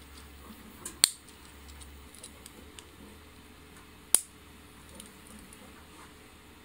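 3D-printed plastic Z-shaped phone stand being folded and unfolded by hand on its screw hinges: two sharp clicks about three seconds apart as its parts snap together, with faint small ticks of handling between.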